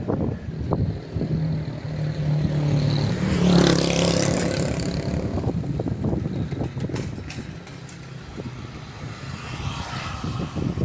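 A motor vehicle driving past: a low engine hum and tyre hiss swell to a peak about four seconds in, then fade away.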